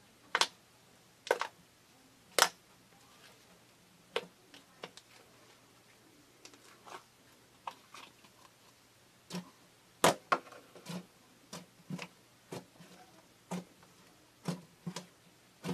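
Fingers pressing, stretching and folding fluffy slime, the trapped air popping in sharp, irregular clicks. The loudest pops come in the first two and a half seconds and again about ten seconds in.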